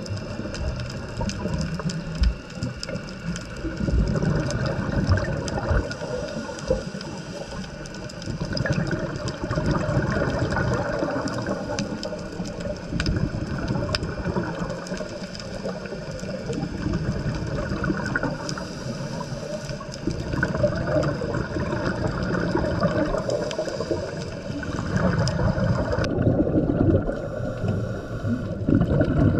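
Water gurgling and bubbling, heard muffled through a camera underwater on a scuba dive, with scattered small clicks and swells that come and go every few seconds.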